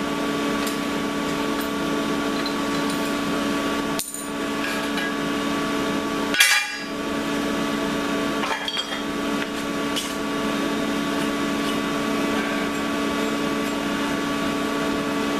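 A few metal clanks and clinks from metal parts being handled, the loudest about six and a half seconds in, over a steady electric hum with a few fixed tones.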